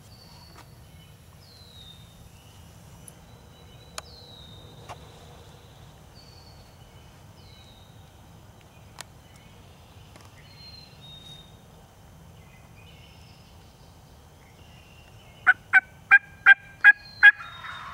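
Turkey calling near the end: a quick run of six loud, short notes about three a second, over faint high chirps earlier on.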